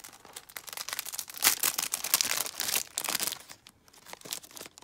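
Clear plastic sleeve crinkling as hands handle a pack of paper red envelopes: a dense crackle, loudest in the middle and easing off near the end.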